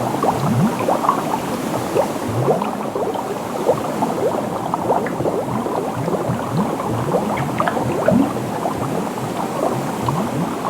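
Dense, continuous bubbling: many overlapping bubble blips, each a short sound rising quickly in pitch, several a second over a steady watery hiss.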